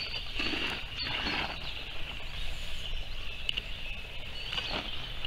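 Lakeside ambience: a steady high chorus of distant birdsong over a low rumble, with faint soft rustling about a second in.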